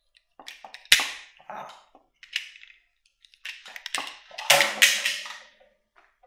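Sharp knocks and clatter of a small handheld tool, a Boomerang line-cutter snip, being tossed and dropped onto hard surfaces. There are several separate hits, the loudest about a second in, and a denser clattering stretch around four to five seconds in.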